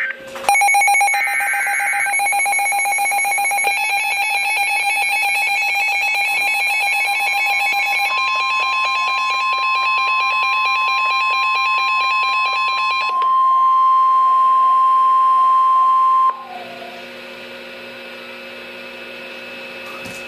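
Overlapping emergency alert tones from a phone and weather radio receivers sounding for a tornado warning. A rapid pulsing alarm beep is joined about eight seconds in by a steady high tone, the weather radio's 1050 Hz warning alarm, and about thirteen seconds in by a warbling tone. All the tones cut off suddenly about sixteen seconds in, leaving a quieter steady hum.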